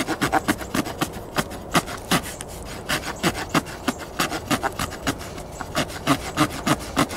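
Sawtooth spine of a Glock FM-81 field knife sawing back and forth across a thin wooden stick: a quick, even run of rasping strokes, several a second. The teeth are set to cut on the push stroke.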